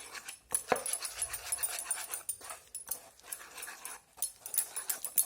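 A spoon stirring a thick batter of ground spinach, gram flour and yogurt in a bowl, with no water added, making irregular scraping strokes.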